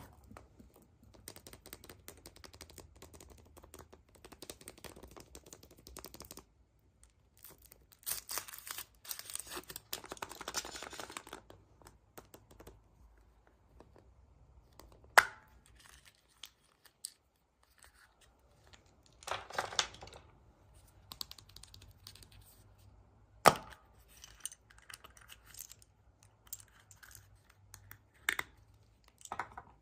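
Packaging being handled and torn open: wrapping rustling and crinkling in uneven stretches, with two sharp snaps or clicks.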